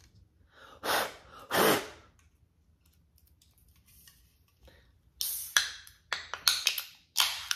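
Aluminium energy-drink can being opened by its ring-pull: the tab clicks, then cracks open with a sharp pop and a short hiss of escaping carbonation, followed by more clicks as the tab is worked back.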